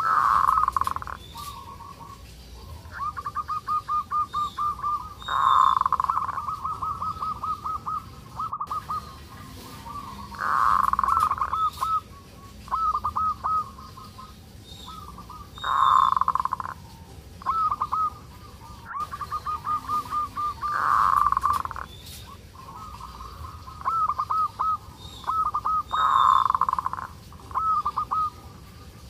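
Zebra dove (perkutut) calling over and over in its 'kerot' (ngerot) call, the call of a bird in breeding condition. A louder burst comes about every five seconds, six times in all, and quick runs of short repeated notes fill the gaps.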